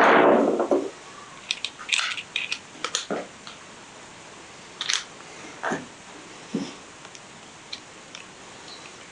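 Hand tools and metal parts being handled while a cover is refitted with a Phillips screwdriver: a loud clatter at the start, then scattered clicks and taps.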